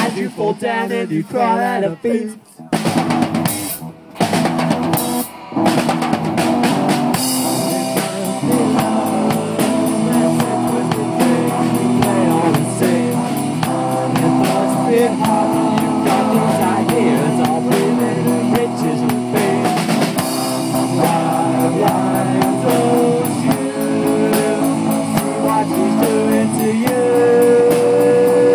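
Live rock band playing: drum kit and guitars, with a few short breaks in the first six seconds before the song runs steadily, and a long held note near the end.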